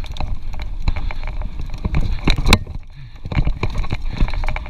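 Mountain bike rattling and clattering over a rough dirt trail, full of irregular knocks and clicks, with a steady low wind rumble on the microphone. A burst of louder knocks comes about halfway through, followed by a short lull.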